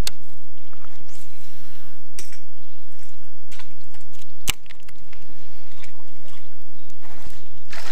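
Low steady hum of an electric trolling motor, with faint water sounds and a few light clicks as a baitcasting reel is cranked. One sharp click comes about four and a half seconds in.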